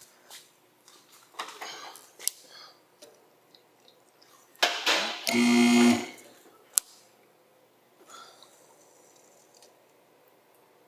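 Shop handling noises as a skid steer cab is lowered on a lift: scattered clicks and knocks, then about four and a half seconds in a loud rush that turns into a steady hum for about a second and cuts off sharply, followed by a single sharp click.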